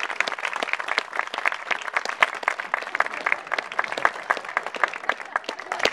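Wedding guests applauding, many hands clapping in a dense, irregular patter that thins a little toward the end.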